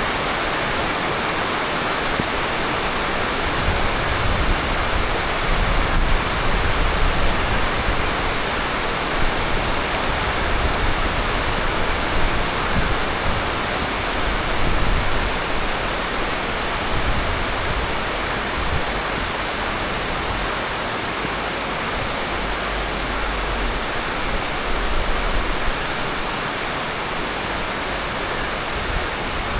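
Heavy monsoon rain falling steadily as a dense, even hiss, with low gusts rumbling underneath.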